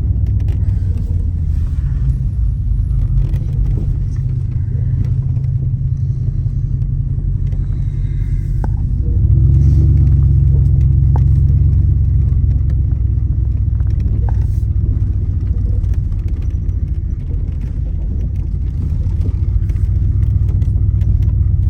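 Steady low rumble of a car driving, swelling louder for a few seconds about nine seconds in.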